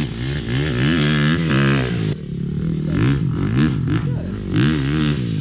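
KTM 350 EXC-F single-cylinder four-stroke enduro engine breathing through an FMF exhaust, revved in repeated quick blips. Each blip rises in pitch and falls back toward idle.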